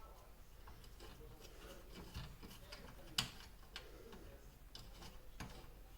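Faint, scattered light clicks and taps, with a sharper click about three seconds in.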